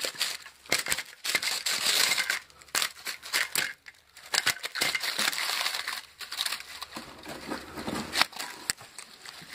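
Copper magnet wire being pulled out of a microwave transformer coil: the strands scrape and rasp against the steel core and the paper insulation crinkles, in irregular scratches and sharp clicks.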